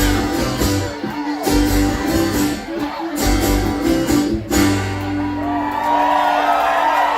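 A live band with strummed acoustic guitar ending a song: the rhythm stops about four and a half seconds in and the final chord rings on, with whoops from the audience starting over it.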